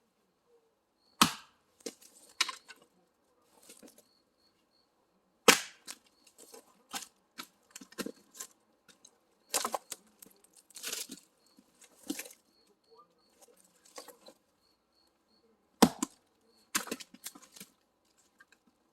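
Axe splitting firewood: three heavy strikes, about a second in, about five and a half seconds in and near the end, with many lighter knocks and clatters of wood in between.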